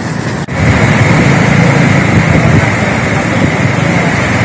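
Kaveri river in flood rushing through the Wellesley bridge's arches: a loud, steady roar of fast water, louder after a cut about half a second in. The river is swollen by water released from the full KRS dam.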